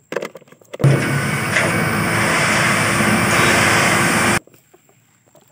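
Dump truck's engine running loud and steady as the truck tips a load of sand, with a steady whine through it. It cuts in abruptly about a second in and cuts off abruptly a second before the end, after a few light plastic knocks from toys being handled.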